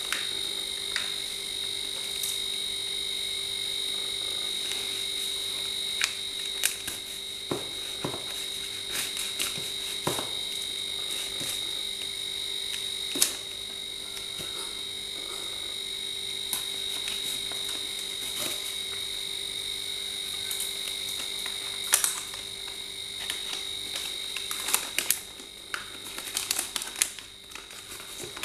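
Scattered clicks, taps and scrapes from handling a taped cardboard box and cutting it open with a knife, thickest near the end, over a steady high-pitched whine.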